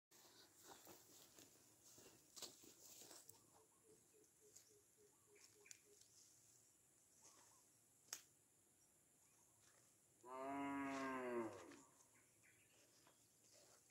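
One drawn-out animal call lasting about a second and a half, about ten seconds in, over near silence with a few faint knocks.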